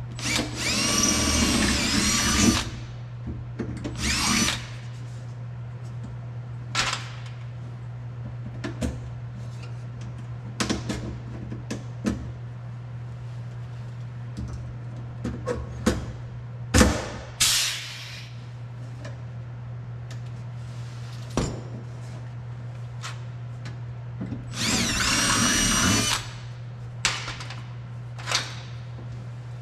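Power drill running in two bursts of about two seconds, one near the start and one near the end. Its whine rises as it spins up and drops as it stops. There is a shorter burst about four seconds in, scattered clicks and knocks in between, and a steady low hum underneath.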